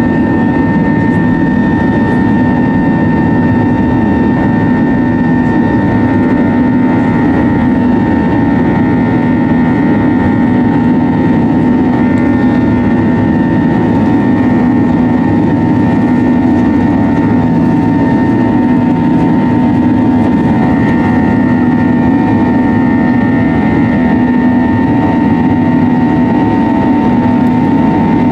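Airbus A320's jet engines running steadily, heard from inside the cabin: a constant loud drone with steady whining tones that neither rise nor fall.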